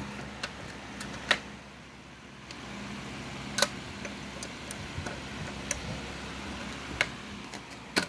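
A door's brass knob and thumb-turn deadbolt being worked to lock it: several sharp, separate clicks and knocks a second or more apart. A low steady hum runs beneath them.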